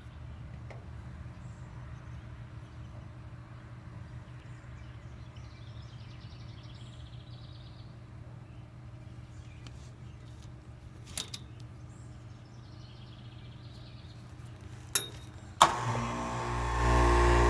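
Carrier air conditioner unit starting up: a steady low hum with a few light clicks, then a sharp click near the end, after which a much louder hum with several steady tones comes on and holds as the unit runs.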